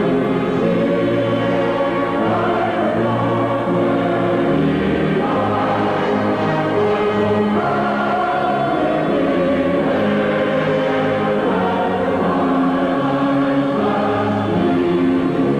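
A choir singing a slow anthem in long, held chords, the national anthem played as the broadcast's final sign-off.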